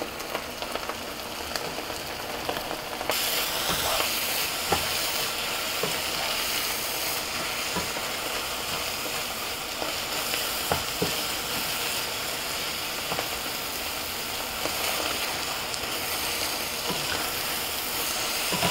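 Rohu fish roe bhuna sizzling in oil in a nonstick wok while a wooden spatula stirs and scrapes it, with light clicks of the spatula against the pan. The sizzle grows louder about three seconds in. This is the last stage of the bhuna, with the oil separating and rising to the top.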